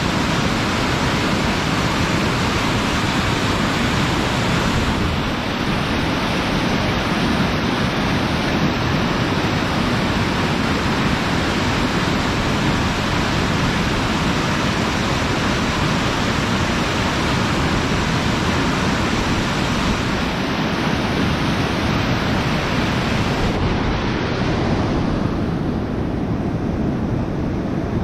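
Gusty winter wind buffeting the microphone in a steady rush, mixed with the rushing of the river below. The highest frequencies drop away about four seconds before the end, leaving a duller rush.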